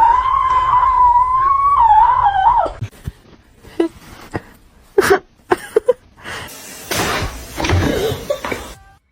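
A cat's long, drawn-out yowl held at a steady pitch, wavering near its end and stopping about three seconds in. Scattered soft knocks and some noise follow.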